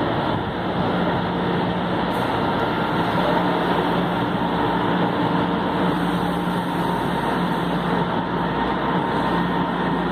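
Metro train standing at the platform with its doors open: a steady hum from its idling onboard equipment over the station's background noise.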